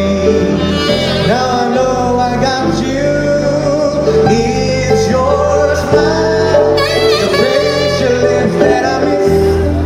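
Live band playing a romantic jazz-style love song: a man and a woman sing together into microphones over saxophone and electric guitar.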